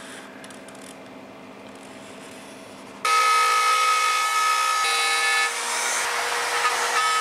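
Handheld power tool cutting a circular speaker hole in a fibreboard package tray. A faint steady hum for about three seconds, then the tool comes in suddenly, loud, with a steady high whine over cutting noise. Its pitch shifts slightly twice as the load changes.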